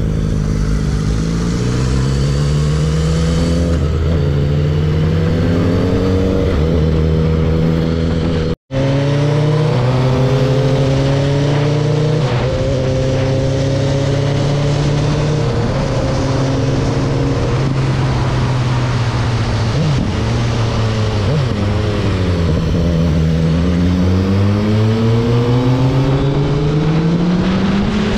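Suzuki Hayabusa's inline-four engine under way, its pitch climbing and falling back in steps as it shifts up through the gears, then holding a steady cruise. Near the end it eases off and pulls hard again with rising pitch. The sound cuts out for an instant about a third of the way in.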